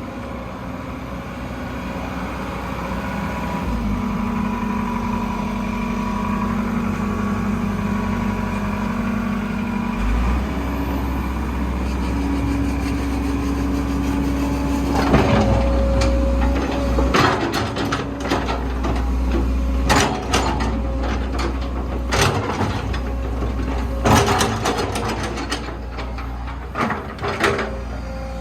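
Komatsu PC130-6E excavator's S4D102E four-cylinder diesel running while its hydraulics are worked, with a steady whine that changes pitch a few times and the engine note deepening under load about a third of the way in. In the second half, several sharp knocks break in at uneven intervals.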